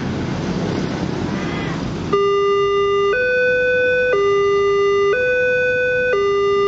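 Road traffic and motorbike engines, then about two seconds in a railway level-crossing alarm from the Multech crossing system switches on. It is a loud electronic two-tone signal that alternates between a lower and a higher note about once a second, warning that a train is approaching.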